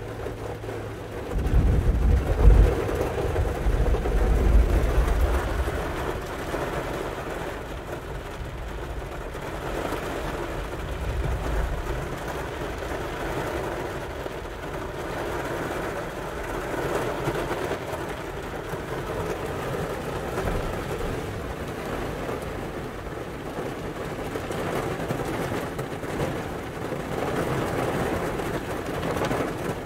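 Thunder rumbling for a few seconds, starting about a second and a half in, over a steady hiss of rain on the car, heard from inside the car.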